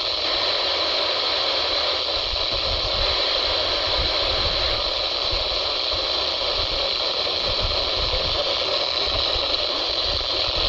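Radio static: a steady hiss of receiver noise from a weather radio on a weak or empty channel, with no voice or tone coming through.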